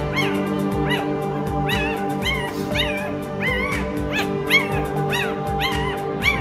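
Newborn puppy crying in short, high whimpers that rise and fall in pitch, about two a second, over steady background music.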